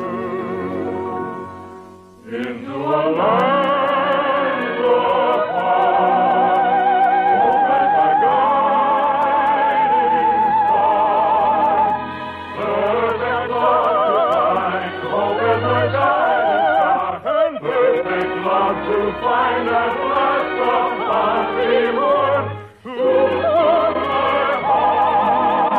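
Operetta music from an old narrow-band radio transcription: voices singing with heavy vibrato over an orchestra. The music dips briefly about two seconds in and again near the end, swelling back each time.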